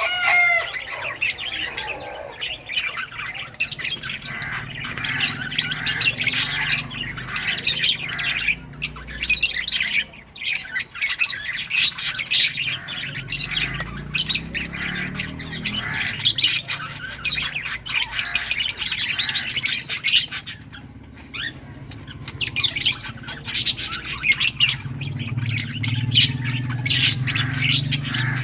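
Several lovebirds chirping and squawking in quick, shrill, overlapping calls, easing off briefly about twenty seconds in.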